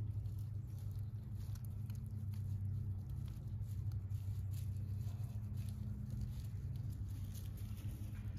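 Light crackling and rustling of dry leaves and twigs on a woodland floor, irregular small crackles over a steady low hum.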